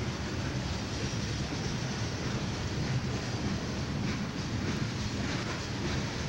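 Freight cars rolling past at close range: a steady rumble of steel wheels on rail, with faint clicks over the rail joints from about four seconds in.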